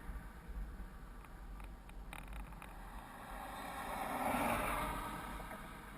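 Steady low wind rumble on the microphone while riding an electric scooter, with a vehicle passing that swells and fades about four and a half seconds in.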